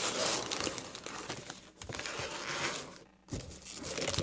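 Trading-card pack wrapper crinkling and rustling as it is handled, with small clicks and a short pause about three seconds in.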